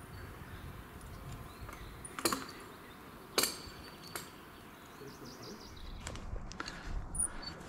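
Metal climbing hardware clinking: three sharp clinks between about two and four seconds in, the second the loudest, with fainter ticks near the end.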